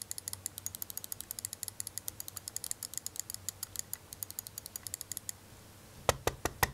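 Sound test of the G-Wolves HSK mouse's main buttons: a rapid run of crisp, high clicks from the switches, with little to no pre-travel. The clicks stop about five seconds in. After a short pause, a louder run of deeper clicks or knocks starts near the end.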